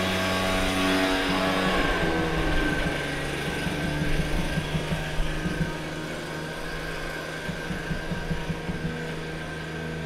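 Leaf blower running steadily outside the window: a continuous engine drone with a high, steady whine. Its pitch shifts in the first couple of seconds, then holds.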